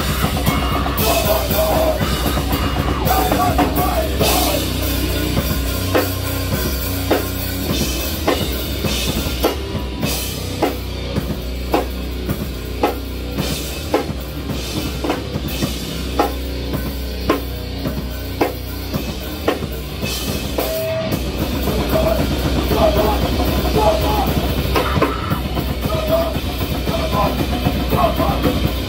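Live rock band playing loudly: a drum kit and amplified strings, with shouted singing near the start and again in the last third. The middle part carries evenly spaced hard drum hits.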